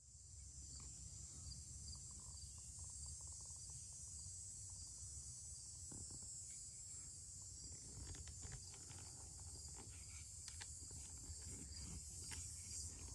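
Steady high-pitched insect chorus in woodland, over a low rumble. From about eight seconds in come faint scattered clicks and rustles.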